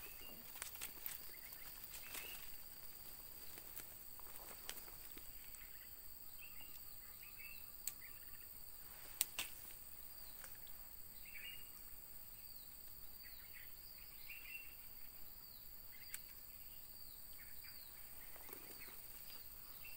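Faint forest ambience: a steady high-pitched insect drone with scattered bird chirps and runs of short falling chirps. A few sharp clicks are heard, the loudest about nine seconds in.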